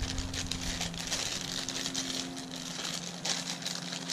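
Thin LDPE plastic bag holding spare rubber tumbler belts crinkling and rustling as it is handled and set down, with an irregular run of small crackles. A steady low hum sits underneath.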